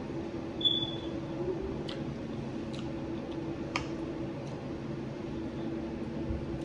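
Quiet eating sounds: chewing, and a handful of faint sharp clicks of a metal fork against a plate, the clearest about four seconds in. A steady low hum runs underneath.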